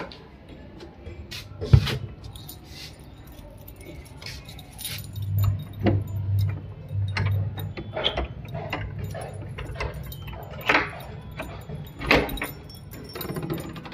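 Keys jangling amid the clicks and knocks of a wooden door and its lock being worked, with one sharp knock about two seconds in.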